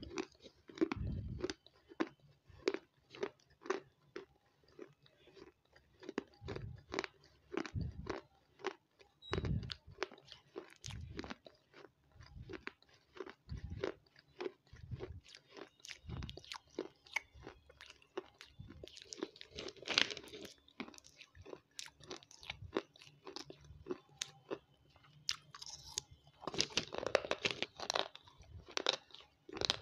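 Close-miked crunching and chewing of dry white crumbles, a steady run of sharp bites and crunches about one or two a second, with denser, louder crunching about two-thirds of the way through and again near the end.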